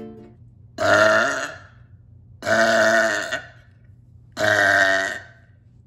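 A person burping: three long, loud burps, each about a second, with short pauses between them.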